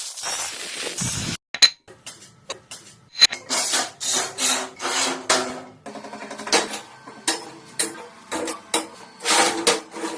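Hand tools working scrap wood: a run of short rasping and rubbing strokes with a few sharp knocks, the strokes coming quickly and unevenly from a few seconds in.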